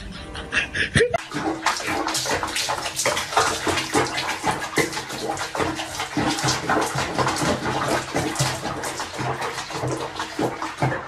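Bathwater splashing and sloshing in a small basin with a cat sitting in foamy suds, starting about a second in and going on unevenly.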